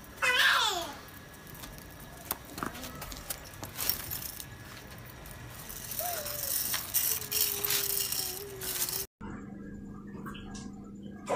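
Small metal wheels of a toy shopping cart and toy bicycle rattling and clicking over concrete as a parrot pushes them along, opened by a loud call that falls in pitch. After a sudden cut about nine seconds in, a steady low hum.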